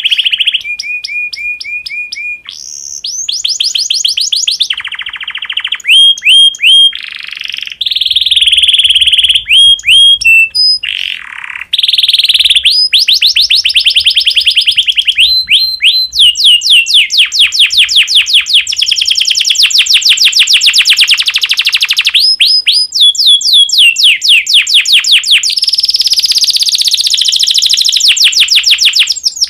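Domestic canary in breeding condition singing a long, loud song of fast rolling trills and rapid repeated notes, switching to a new trill every second or few seconds. This is the kind of song used to stimulate other canaries to sing.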